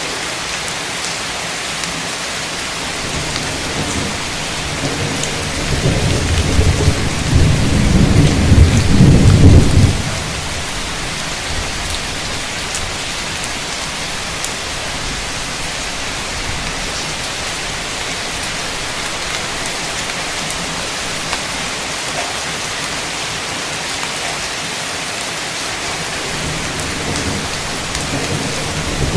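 Heavy, steady rain with a roll of thunder that builds about five seconds in, is loudest around nine seconds, then stops abruptly; a second rumble begins right at the end.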